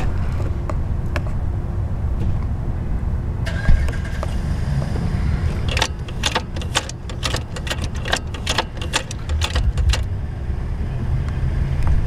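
Shift linkage on a VW six-speed manual transmission being worked through the gears: a quick run of sharp metallic clicks and clacks from about six to ten seconds in, with a single knock a little before, over a low rumble.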